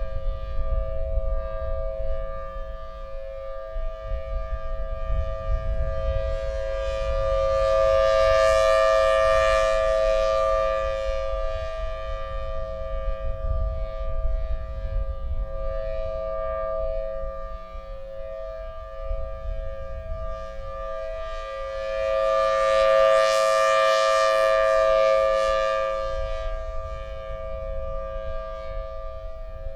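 Federal Signal Thunderbolt 1003 civil defense siren sounding its steady alert tone, a held two-note pitch that swells and fades twice as the rotating siren head sweeps past. Wind rumbles on the microphone underneath.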